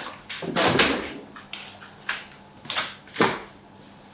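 Raw horse meat being handled by hand and dropped into a plastic crate: a series of wet slaps and knocks, the loudest about a second in, over a faint steady hum.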